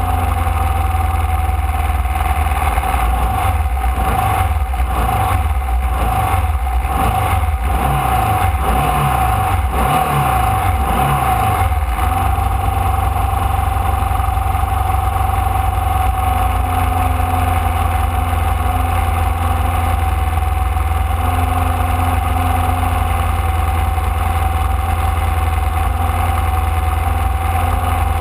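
Formula Vee's air-cooled Volkswagen-based four-cylinder engine heard onboard, revved in a quick series of short rises in pitch, about one a second, from a few seconds in until about twelve seconds in, then running at a steady note.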